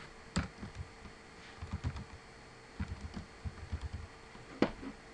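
Typing on a computer keyboard: short runs of keystrokes, with a louder click about half a second in and another near the end.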